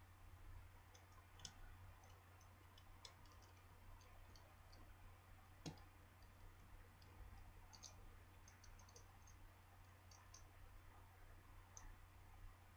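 Very faint, scattered small clicks of a small screwdriver and tiny screws being worked out of a Samsung Galaxy Nexus smartphone's frame, with one sharper click about six seconds in, over a low steady hum.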